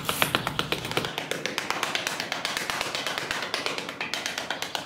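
Miniature hand trowel patting and smoothing sand in quick, even taps, several a second. Background music fades out about a second in.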